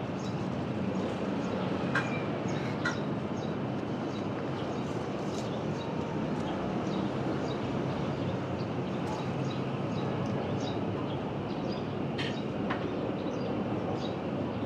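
Steady outdoor background noise with a faint low hum, and a few faint short high chirps and clicks scattered through it.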